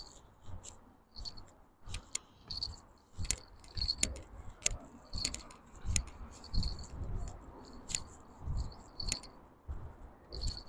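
Clicks, rattles and low thumps as a fishing rod and line are handled and a hooked patin catfish is hauled up a grassy riverbank. A short high chirp repeats about once a second behind them.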